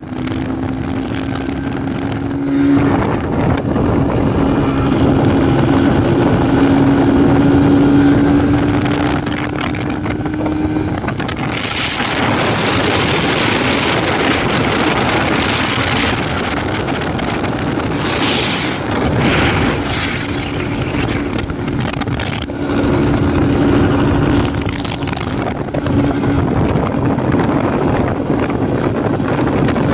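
Suzuki X7 two-stroke twin motorcycle engine running after standing unused for a long time, holding a steady note. About a third of the way in the note breaks up into a rougher, noisier sound for roughly ten seconds, then settles back to the steady note.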